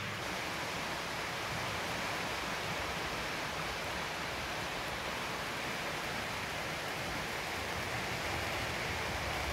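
Steady rushing noise of an OO gauge model train running along the layout's track, getting a little louder near the end as it comes closer.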